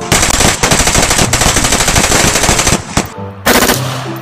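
Automatic gunfire from a firearm: one long rapid burst of nearly three seconds, then a shorter burst about three and a half seconds in.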